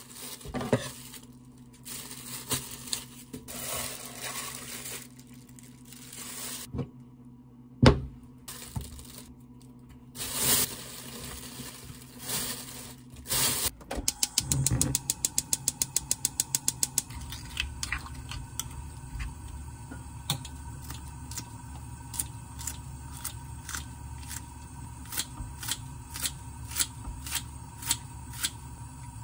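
Plastic bag rustling and knocks as meat and bones go into an earthenware pot. Then a gas stove igniter clicks rapidly for a couple of seconds and the burner settles into a steady low rumble. After that kitchen scissors make a run of sharp snips, cutting Welsh onion and green chili into the pot.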